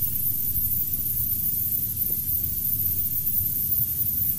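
Steady hiss over a low rumbling hum, with no speech: the background noise of the recording during a pause in the talk.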